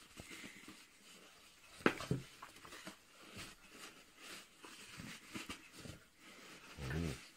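Tissue paper rustling and crumpling as a hand rummages through a cardboard box of wrapped telescope eyepieces, with scattered light knocks and a sharper click about two seconds in.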